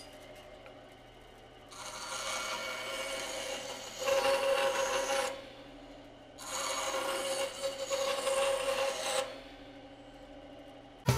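Rebuilt Ridgid 14002 bandsaw running with a steady motor hum, its blade making two rasping cuts through a small block of wood, starting about two and six seconds in and each lasting about three seconds. The saw cuts smoothly, a sign the rebuild works.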